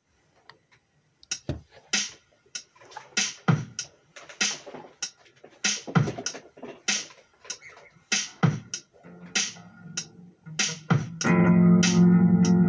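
Electric bass guitar played as a riff: a run of short, sharp, percussive hits on the strings with almost no ring, then about eleven seconds in a loud held note rings out.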